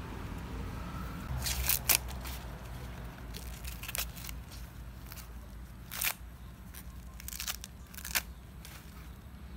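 Green husks being torn and stripped by hand from ears of fresh white corn: several sharp, crackly tearing sounds, the loudest a quick cluster about two seconds in, over a low steady hum.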